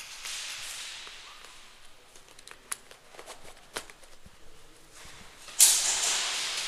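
Airsoft gun magazine change: scattered sharp clicks and knocks as the magazine is seated in a D-Boys KAC PDW, then a sudden loud rushing noise near the end that fades off.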